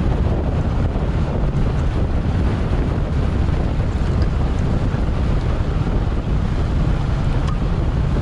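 Steady wind rushing over the microphone, a dense low-heavy noise without a break, typical of a camera carried at speed in a bicycle race.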